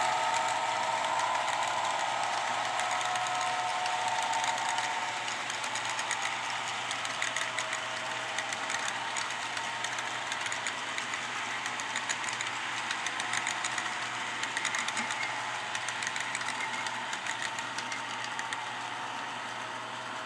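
Model train cars rolling past on the layout track, their small metal wheels clicking and clattering over the rails in a quick, busy patter. A whine at the start fades away, and the clatter slowly gets quieter as the train passes.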